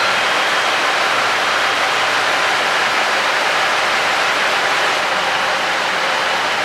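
JR Central KiHa 85 series diesel railcars running steadily with their Cummins diesel engines exhausting from the roof. The sound is a steady rushing drone with no breaks.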